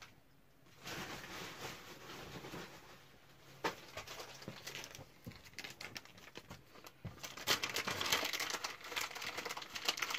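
Plastic bag crinkling and rustling as it is handled, with a sharp click partway through and louder, denser crinkling over the last few seconds.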